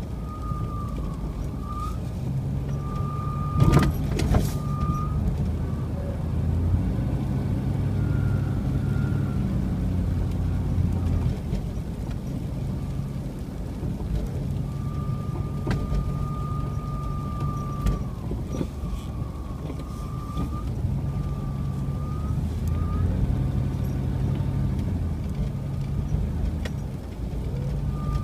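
Car being driven on a snowy road: a steady low engine and road rumble that shifts in level. A faint wavering high tone comes and goes, and there is a sharp knock about four seconds in.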